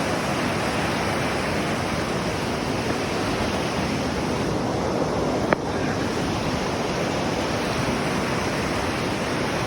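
Steady rush of river water pouring over a small waterfall and through the pool above it. A single sharp click about halfway through.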